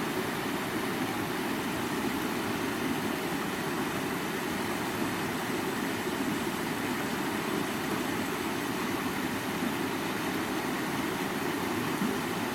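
River water rushing, a steady, even sound with no breaks.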